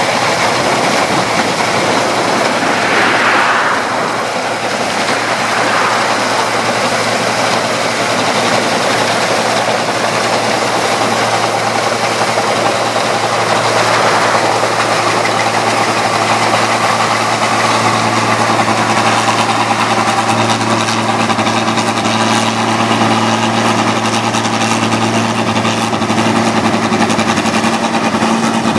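New Holland 1545 S rice combine harvester running steadily under load, its engine and threshing machinery giving a loud, continuous hum, heard from on board close to the engine compartment.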